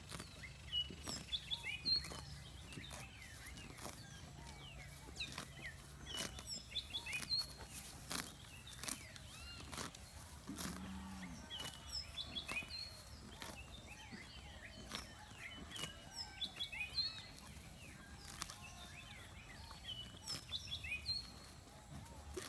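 An ox grazing close by, tearing and cropping grass in a string of short, irregular clicking pulls, with birds chirping in the background.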